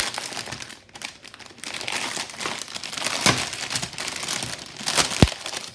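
Plastic packaging crinkling and rustling in irregular crackles as items are handled out of the bag, with a sharp knock about five seconds in.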